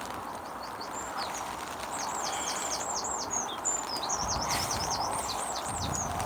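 A songbird singing phrases of quick, high, downward-slurred notes, over a steady hiss of falling rain.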